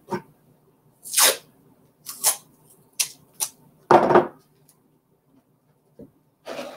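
Masking tape being pulled off the roll and torn into strips: a few short rips about a second apart, the loudest about four seconds in.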